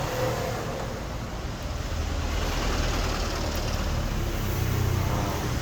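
A steady low hum over a background of even noise, with no distinct knocks or strikes.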